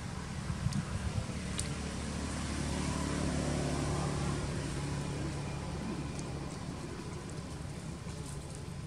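A motor vehicle engine passing: a low hum that swells about two seconds in, peaks in the middle and fades away, over a steady low rumble.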